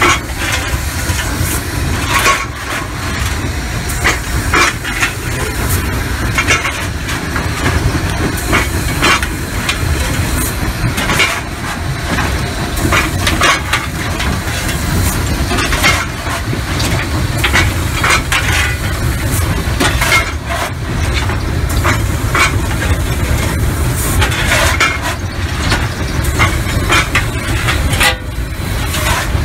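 Cab noise of a moving steam locomotive: a steady heavy rumble with frequent irregular clanks and knocks throughout.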